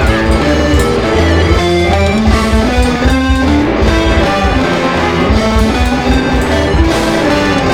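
Rock band playing, led by guitar over a strong bass line, with no singing.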